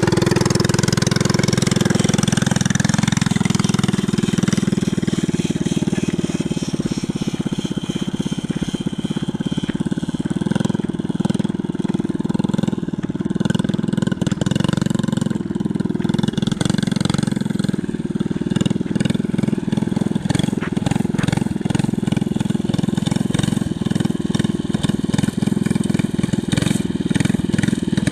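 A 49cc gas mini bike's small engine running continuously as the bike is ridden.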